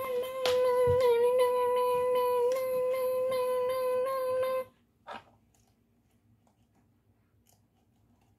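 Toy railroad crossing signal's electronic bell ringing: a steady high tone with quick repeated dings that cuts off suddenly about four and a half seconds in, followed by a single click.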